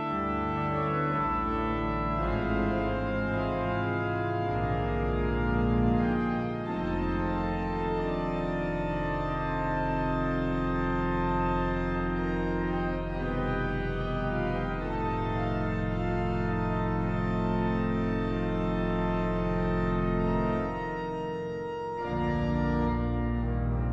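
Background organ music: slow, held chords with deep bass notes underneath.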